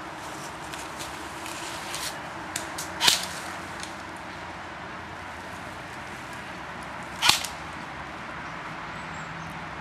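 Two sharp cracks about four seconds apart, each very short, with a few fainter clicks just before the first: airsoft gun shots.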